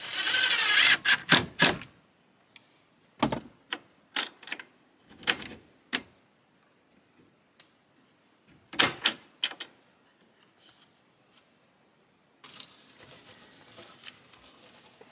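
Cordless drill briefly driving a screw into the wooden door, followed by scattered sharp clicks and taps as a small metal door latch is fitted and handled.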